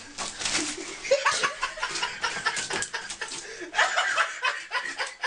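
A person laughing in short, breathy bursts.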